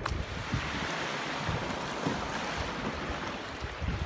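Sea water washing and lapping in a steady hiss, with some wind buffeting the microphone.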